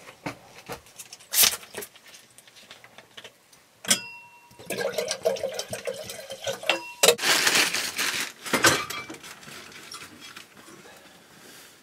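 Aluminium kettle and pots handled on a wood-burning stove: clicks and clinks of metal, one clink ringing briefly about four seconds in, and a stretch of water-like rushing and sloshing in the middle.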